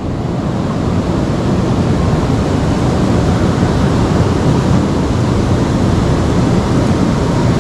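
River water rushing: a dense, steady noise that swells slightly in the first second.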